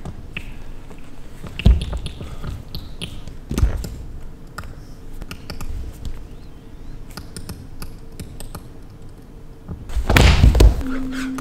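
Dull thuds and taps of dancers' bodies and bare feet on a stage floor: a few spaced apart, then a louder cluster of thumps about ten seconds in.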